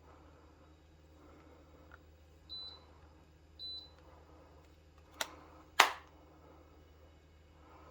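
Two short, high electronic beeps about a second apart, then two sharp clicks half a second later, the second click the louder, over a faint steady low hum.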